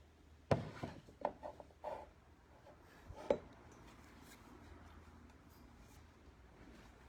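Mechanical keyboard keystrokes: a short, uneven run of about six clicks in the first two seconds and one more a little after three seconds, then a pause with only faint low room hum.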